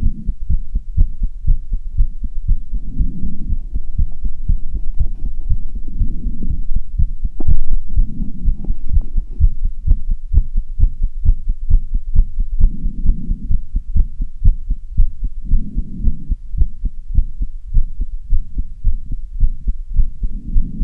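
A person's heart beating fast after strenuous exercise, picked up through a phone's microphone as a quick, even train of low thuds. Heavy breathing rises and falls under it about every three seconds, and there is one louder thump about seven seconds in.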